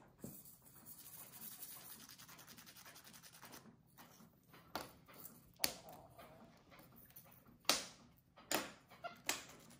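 A nail file rasping quickly back and forth on a monkey's nails for the first few seconds, then a handful of sharp clicks.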